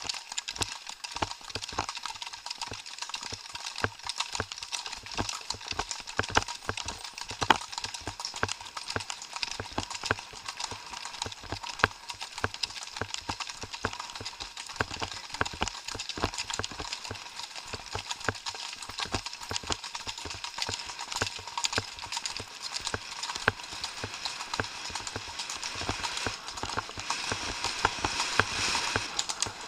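Horses' hooves striking a gravel track in a continuous, fast run of hoofbeats, with a steady hiss underneath. The hoofbeats get a little louder near the end.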